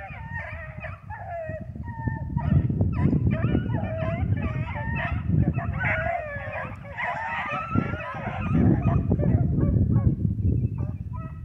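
A pack of rabbit hounds baying together, several voices overlapping, the sign that they are running a rabbit's scent trail. A steady low rumble sits underneath.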